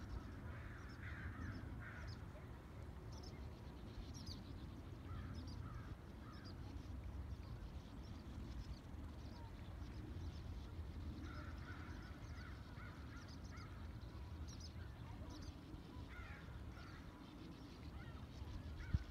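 Common goldeneye ducklings peeping faintly: scattered short high peeps, with a few clusters of lower calls about a second in, around five seconds, and again between eleven and seventeen seconds, over a steady low rumble.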